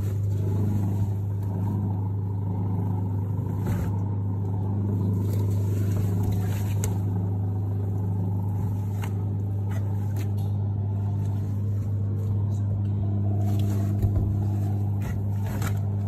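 Hisense twin-tub washing machine's wash tub running: a steady low motor hum as it churns water and clothes, with a few faint clicks.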